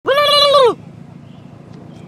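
One short car-horn honk, a steady single tone lasting under a second, followed by the car's engine idling quietly.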